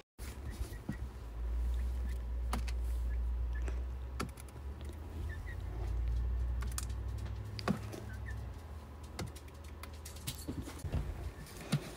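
Irregular light clicks and taps from a chicken pecking at feed on the bottom of a plastic tub.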